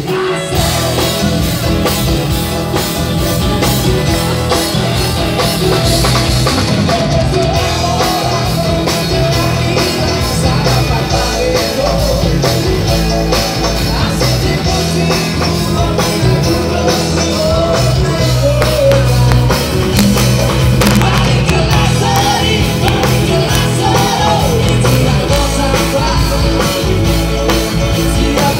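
Live rock band playing loud through PA speakers: a drum kit keeping a steady beat, guitars and a singing voice.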